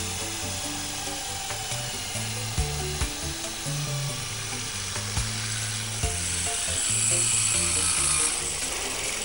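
Electric drill in a column stand boring an 8 mm hole through steel square tube with a cobalt bit at low speed: a steady grinding hiss that grows louder and higher about seven seconds in. Background music with a stepping bass line plays underneath.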